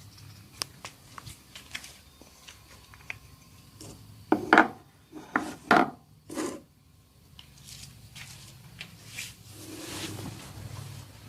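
Hands working a head massage: scattered light clicks and rubbing, with a cluster of about five loud, short strokes about four to six and a half seconds in, and a softer rubbing swell near the end.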